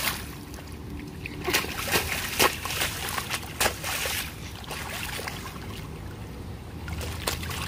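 Rainwater running along a street gutter, with a handful of sharp splashes through the middle.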